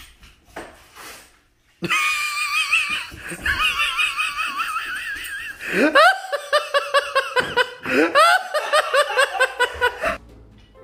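High-pitched laughter that starts suddenly about two seconds in: first a long wavering, trilling stretch, then a rising whoop into rapid ha-ha pulses, about five a second, which cuts off abruptly near the end.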